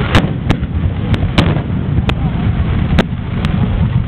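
Aerial fireworks going off: about seven sharp bangs at irregular intervals over a steady low rumble of further bursts.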